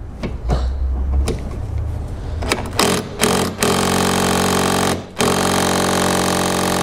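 A cordless electric ratchet spinning a 10 mm socket on the bolt of an AC line: a few short blips, then two steady runs of its motor whine with a brief break between. The bolt is too tight and does not come loose.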